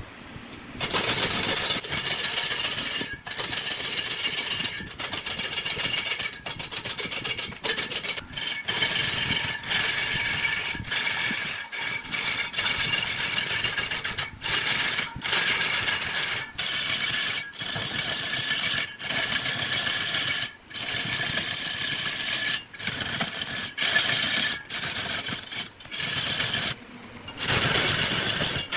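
Turning tool cutting a spinning wood blank on a large lathe: a steady scraping hiss with a faint whine under it, broken by short gaps every second or so.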